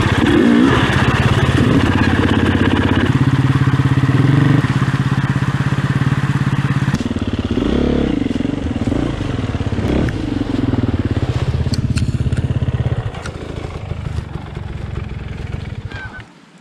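KTM enduro motorcycle engine working hard under load, revving up and down over rocks and a creek bed with some clatter from the bike. It goes quieter in the last few seconds, then cuts out suddenly near the end as the bike goes down and stalls.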